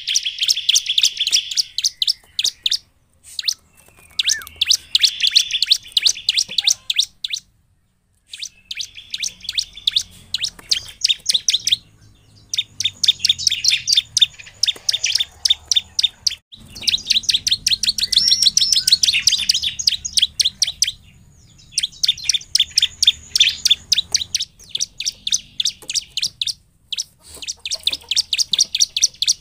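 Bar-winged prinia (ciblek) singing in full voice: fast runs of sharp, high chirps in phrases of a few seconds, broken by short pauses.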